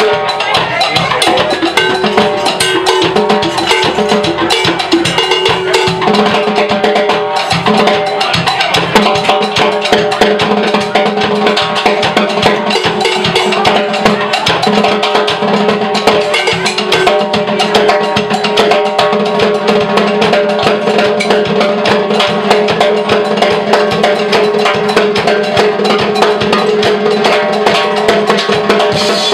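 Live funk band playing, with drum kit and hand percussion driving a busy rhythm under sustained pitched notes.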